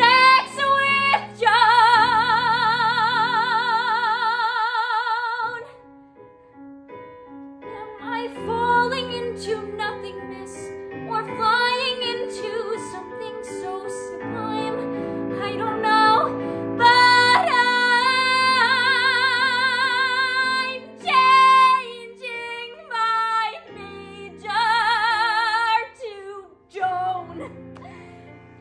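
A woman singing a musical-theatre song solo over piano accompaniment, holding several long notes with wide vibrato.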